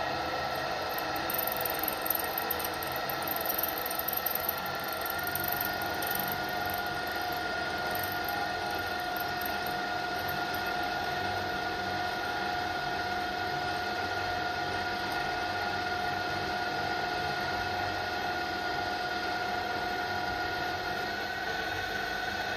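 Mini mill's spindle motor running with a steady whine while a long 4 mm drill bit is hand-fed deep into a cast iron block. The pitch steps up slightly about five seconds in and again near the end.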